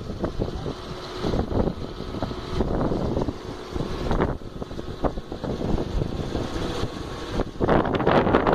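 Strong, gusty wind buffeting the microphone in a low, uneven rumble that rises and falls, with a stronger gust building near the end.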